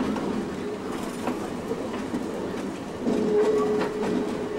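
Steam excursion train rolling over jointed track, its wheels clicking over the rail joints against a steady rumble. About three seconds in, a steady whistle tone starts up and holds, the steam whistle sounded on passing a whistle post.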